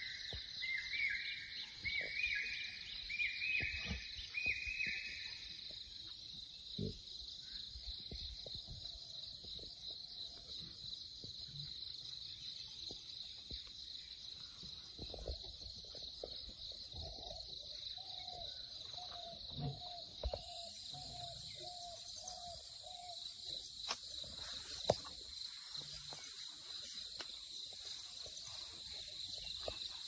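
Forest ambience: steady, high insect chirring, like crickets or cicadas. Over the first five seconds a bird calls a series of short rising notes, each a little higher than the last. Later, a low hooting call is repeated about a dozen times.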